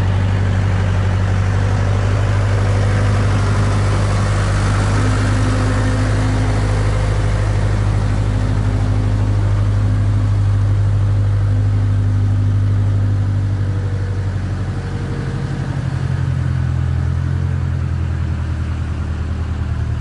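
Case backhoe's engine running steadily as the machine drives across a field, a continuous low hum with a slight change in pitch about two-thirds of the way through.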